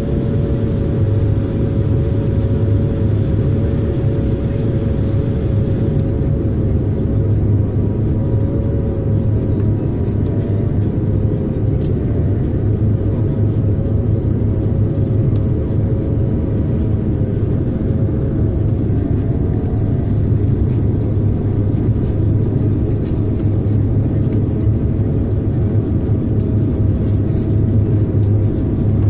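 Steady engine and airflow noise inside an airliner cabin on final approach with the landing gear down: a deep, even hum with a slightly wavering higher tone over it.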